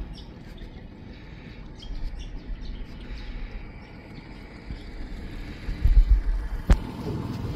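40-horsepower Mercury outboard running at low speed on an aluminium dinghy, with small birds chirping faintly now and then. About six seconds in there is a brief low rumble, then a single sharp knock near the end.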